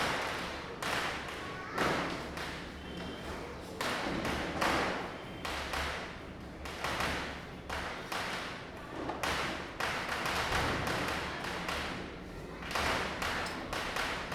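Firecrackers going off again and again at irregular intervals, near and far, sharp bangs overlapping and each trailing off in echo, some louder cracks standing out among a steady patter of smaller ones.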